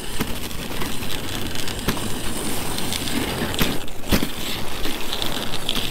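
Dog sled runners scraping and hissing over icy, crusty trail snow, with a few sharp knocks near the middle as the sled jolts.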